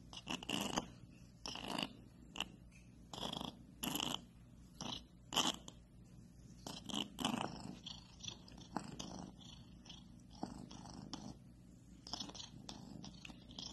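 Tabby kitten purring: a steady low rumble with a breathy rasp about once a second, louder in the first half.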